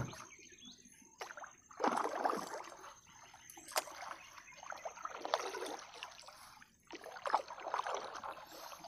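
Water splashing and dripping in irregular spells as a wet gill net is pulled by hand from the water into a small boat, with one sharp knock about four seconds in.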